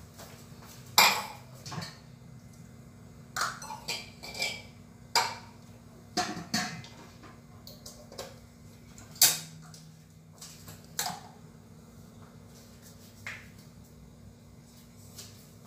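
Kitchenware being handled: about a dozen irregular clinks and knocks of pots, dishes and utensils, the loudest about a second in and about nine seconds in, over a low steady hum.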